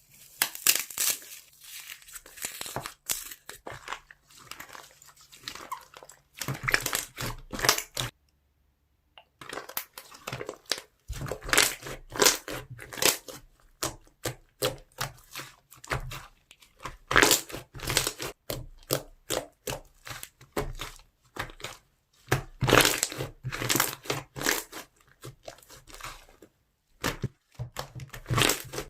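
Slime being squeezed, stretched and pressed by hand, giving irregular crackling and popping clicks, with a brief silent break about eight seconds in.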